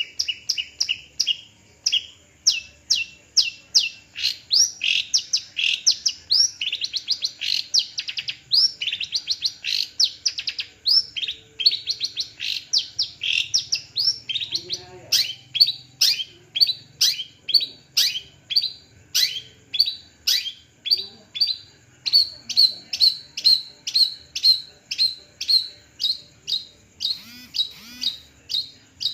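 Long-tailed shrike (cendet) singing a fast, unbroken run of short repeated notes, about two to three a second. Through the first half the notes sweep downward; later they turn into shorter notes at a steadier, higher pitch.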